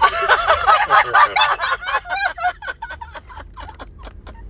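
High-pitched cackling laughter that trails off after a couple of seconds into a run of short clicks.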